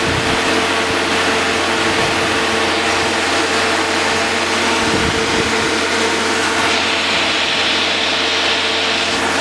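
Boat travel lift's engine running steadily, a constant whine over a low hum.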